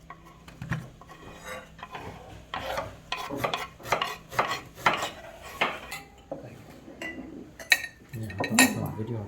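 A spoon stirring and scraping in a bowl as ceviche (raw fish in lime juice with seasonings) is mixed, with irregular clinks and scrapes that come thickest in the middle.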